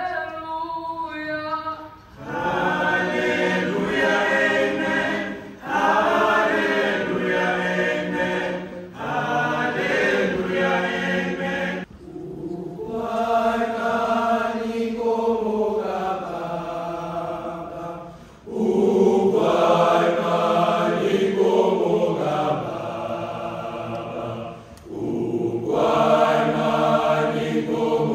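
A choir singing in long held phrases, many voices together, with brief pauses between phrases.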